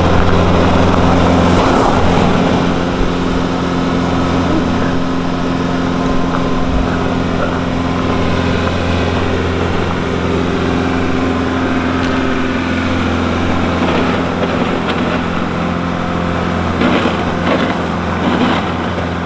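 Bobcat skid steer's diesel engine running steadily at a constant pitch, a little louder in the first couple of seconds.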